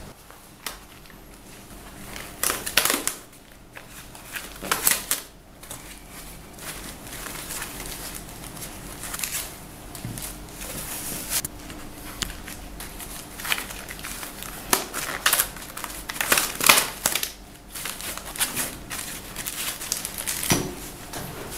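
Plastic packaging crinkling in irregular bursts as wrapped parts are handled and unwrapped.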